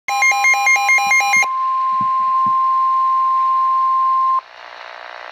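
Midland NOAA weather alert radio sounding a severe thunderstorm warning alert: rapid pulsing electronic beeps for about a second and a half, then the steady high National Weather Service warning alarm tone for about three seconds. The tone cuts off suddenly into radio hiss.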